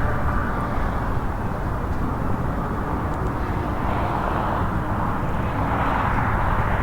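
Wind rumbling on the microphone, with a faint, distant Federal Signal Model 7B siren sounding its steady alert tone, swelling and fading as it rotates.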